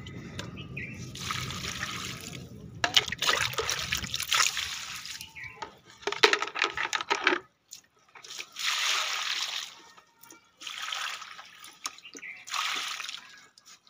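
Water poured from a plastic mug into potted plants' soil, a series of separate splashing pours about a second long each.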